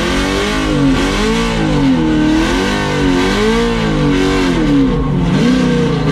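Chevrolet Camaro SS's V8 revving hard during a burnout. The engine is blipped up and down over and over, rising and falling about once a second.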